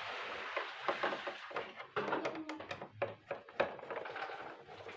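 Irregular clicks and knocks of parts being handled and fitted back into a split air conditioner's indoor unit, over a steady hiss.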